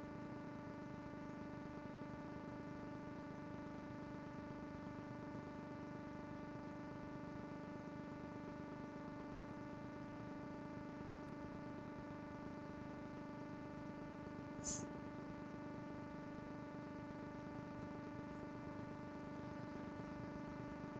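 Steady electrical hum picked up through a video call's audio: a stack of even tones that comes in abruptly at the start and holds unchanged. A brief high chirp about fifteen seconds in.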